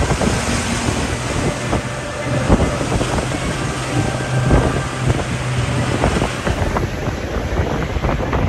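Wind buffeting the microphone over the drone of a jeep's engine on the move, with scattered knocks and rattles. A steady low hum is strongest from about two seconds in to about six seconds in.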